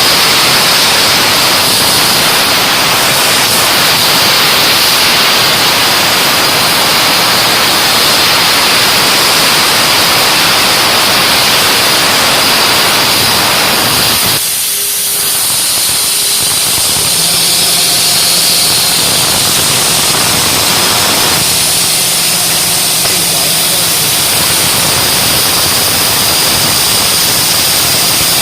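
CNC plasma cutter cutting thin steel sheet: the plasma arc and its air stream make a loud, steady hiss. About halfway through the lower part of the hiss drops out and faint steady hums come and go, while a high hiss carries on.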